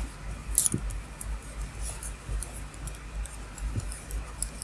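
Wooden double-pointed knitting needles clicking and tapping lightly against each other as stitches are handled. The clicks are small and irregular, with a sharper one about half a second in.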